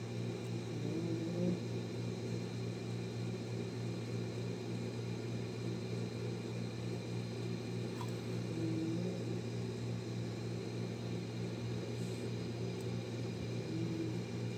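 Steady low mechanical hum with a few fixed tones, unchanging throughout, from a running machine such as a fan or appliance.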